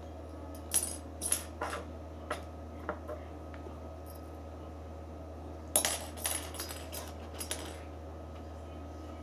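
Two quick flurries of light clinking and rattling, like small hard objects being knocked about, one about a second in and a louder one near six seconds, over a steady low hum.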